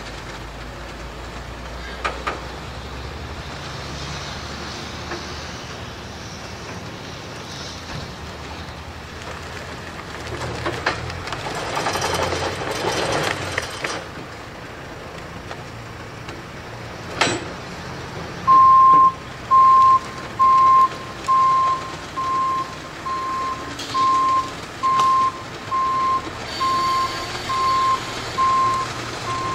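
A telehandler's engine runs steadily, with a louder stretch of noise for a few seconds around the middle. About two-thirds of the way through its reversing alarm starts, one high beep about once a second.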